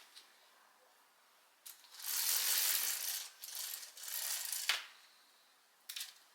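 Small objects being handled close up: a couple of seconds of light rattling and rustling, broken by a few sharp clicks, one at the end of the longest stretch.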